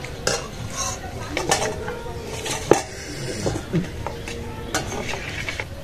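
Stainless-steel plates and a steel serving bowl clinking, with a spoon scraping and knocking in the bowl; several sharp clinks with a short metallic ring.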